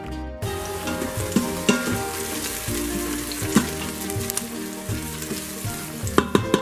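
Diced red onion sizzling in hot olive oil in an Instant Pot's stainless steel inner pot, the sizzle starting about half a second in. A silicone spatula stirs it, with a few sharp knocks against the pot. Background music plays underneath.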